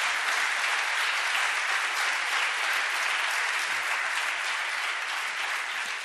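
Audience applauding, a dense steady clapping that tapers off slightly near the end.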